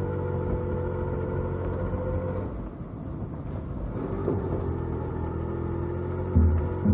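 Background electronic dance music: sustained synth chords over a low drone, with a chord change partway through. Near the end a steady kick-drum beat comes in, about two beats a second.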